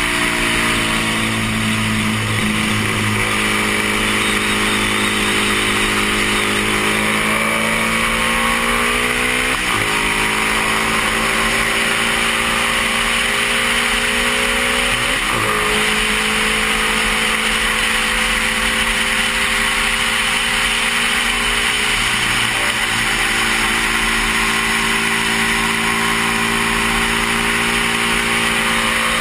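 1972 Honda CB350's parallel-twin engine at full throttle, climbing in pitch and dropping sharply with each upshift: at the start, about ten seconds in and about fifteen seconds in. After the last shift it holds a near-steady note. Heavy wind rush over the helmet-mounted camera sits under the engine throughout.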